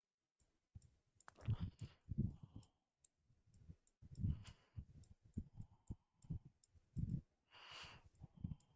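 Computer mouse clicking and being handled while sculpting. Irregular sharp clicks and soft knocks come in clusters, with a short hiss near the end.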